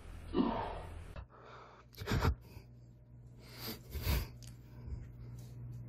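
A person's short gasp or exclamation, followed by a few light knocks and bumps.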